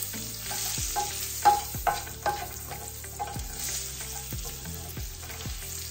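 Cubes of salt pork fatback sizzling in a stainless steel skillet over a low gas flame, browning as they are stirred, with scattered clicks and scrapes of a utensil against the pan.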